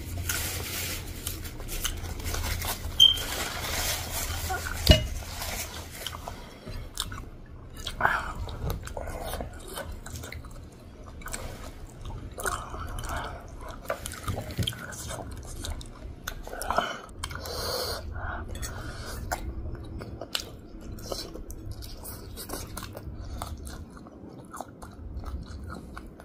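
People chewing and slurping chow mein noodles close to the microphone, with occasional sharp clicks of forks on plates.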